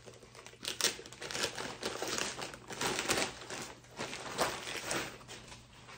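Packaging crinkling and rustling in irregular bursts as clothes are pulled out and unwrapped.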